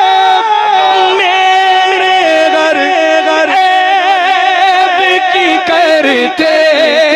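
Naat singing: a single voice carries a slow, ornamented melody with wavering vibrato and long held notes.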